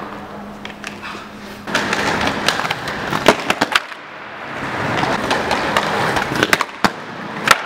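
Aggressive inline skates rolling over a concrete floor: a rough wheel rumble in two runs, broken by sharp clacks as the skates strike hard edges, with a hard impact near the end.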